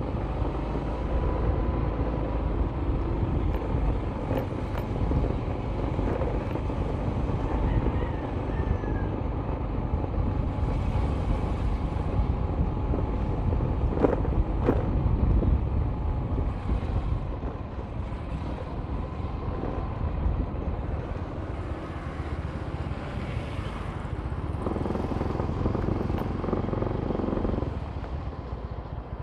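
Steady low rumble of a vehicle driving along a concrete road, engine and tyre noise. Two short knocks about halfway through.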